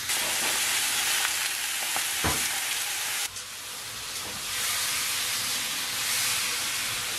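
Sirloin steaks sizzling in a hot ridged grill pan, with a single knock about two seconds in. The sizzle dips briefly a little after three seconds, then swells again as another steak is laid in the pan.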